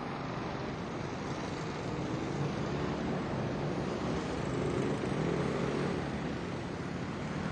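A steady mechanical rumble with a rushing hiss, like a passing vehicle or aircraft engine, swelling a little around the middle.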